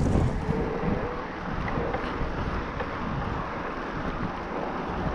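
Wind buffeting the action camera's microphone while riding an electric mountain bike, over a dense, steady low rumble from the ride.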